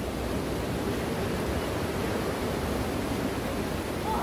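Small waves breaking and washing up a sandy beach: a steady rushing noise.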